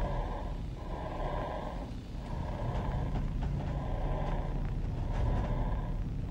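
Steady low rumble of an ambulance on the move, with a noisy mid-range layer that swells and dips every second or so.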